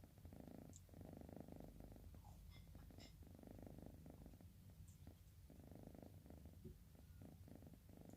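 Sleepy cat snoring softly, a faint low rumble that comes and goes with each breath, roughly every one and a half to two seconds.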